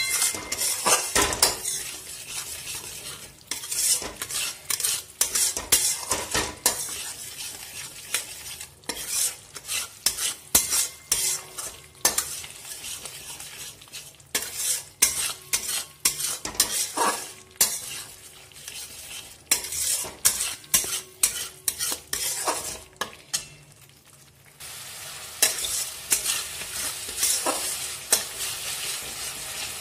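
Metal spatula stirring and scraping a thick onion-tomato spice paste frying in oil in a metal pan, in irregular strokes over a steady sizzle. The masala is being fried down (kosha), the stage before the potatoes go in. The strokes pause briefly a little before the end, leaving the sizzle on its own.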